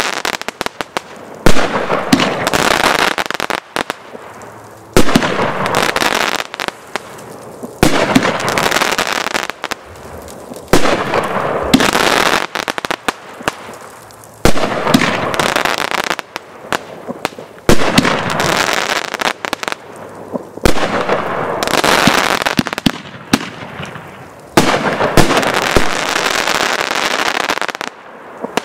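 TNT Salute to America 500g consumer firework cake firing shot after shot, about every three seconds. Each shot is a sharp bang followed by a couple of seconds of dense crackling that dies away before the next.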